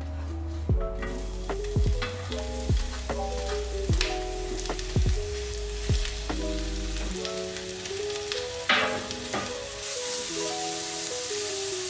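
Sliced shiitake mushrooms and Japanese leek (negi) frying in oil in a stainless steel pan. The sizzle grows loud and steady near the end as they are stirred, over background music with a regular beat.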